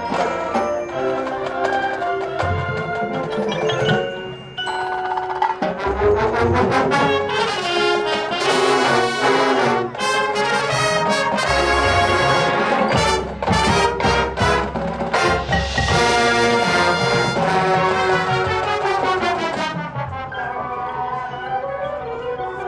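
High school marching band playing its competition show: brass with mallet percussion. There is a brief lull about four seconds in, then the full band swells loud and eases off a little near the end.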